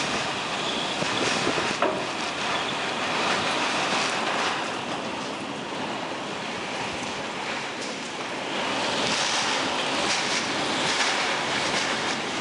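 Category 5 hurricane wind and driving rain lashing a house, a steady loud rush that swells in gusts about a second in and again after eight seconds.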